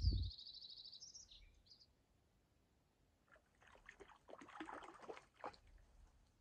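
A small bird trills high and fast for the first second or so. About three seconds in come two seconds of rustling and light splashing as a small trout hooked on an overnight set line is pulled from a creek pool.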